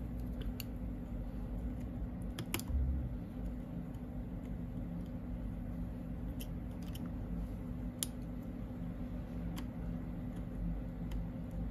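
Steel tweezers clicking and tapping faintly a few times against the parts of an opened iPhone XR, over a steady low hum.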